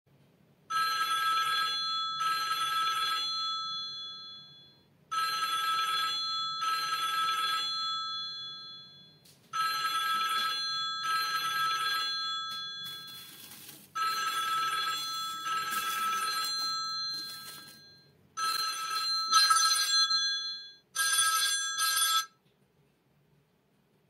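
Retro old-style telephone-bell ringtone from a Samsung Duos mobile phone: a double ring, two rings about every four and a half seconds, repeating five times, then cut short a little before the end as the call is answered.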